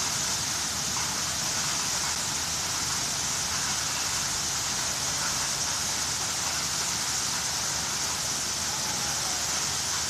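Bridge deck water curtain fountain: water falling in a sheet, a steady hiss that does not change.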